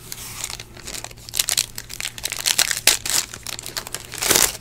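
Foil trading-card pack wrapper being crinkled and opened by hand, an irregular crackling with the loudest crinkle about four seconds in.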